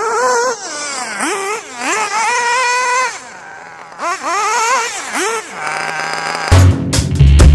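Small nitro RC car engine revving in a series of throttle blips: each one whines up in pitch, holds at high revs for up to a second and falls back to idle. About six and a half seconds in, loud music with a heavy beat comes in over it.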